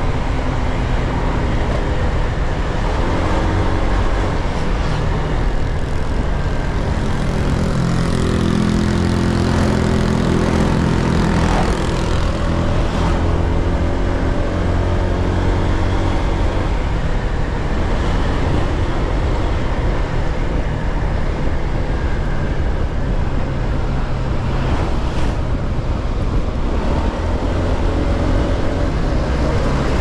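Scooter engine running under way, its pitch rising and falling as the throttle changes, over a heavy, steady low rumble of wind and road noise.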